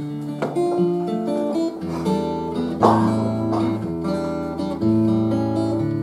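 Solo acoustic guitar playing chords as the instrumental introduction to a song, with a fresh chord struck every second or two.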